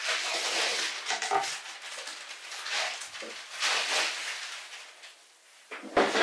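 A sheet of paper rustling and crinkling in irregular swells as it is handled and pulled away from a wooden board, with a sharp knock about six seconds in as something is set down on the desk.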